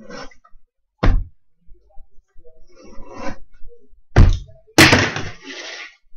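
Cardboard trading card hobby boxes being set down and moved about on a tabletop by hand: a thunk about a second in, a louder one just after four seconds, then a burst of scraping and rustling as the boxes slide against each other and the table.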